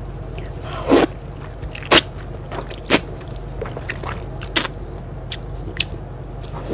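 Noodles being slurped through the lips in a run of sharp sucks, four strong ones about a second apart and then smaller wet mouth clicks, over a steady low hum.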